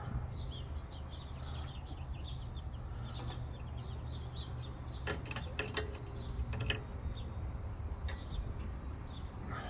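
Small birds chirping repeatedly over a steady low hum, with a few sharp clicks a little past the middle, in keeping with metal fittings being handled.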